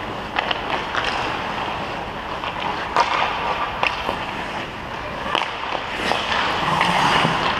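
Ice hockey skates gliding and scraping on rink ice, with several sharp clacks of hockey sticks and pucks at irregular moments.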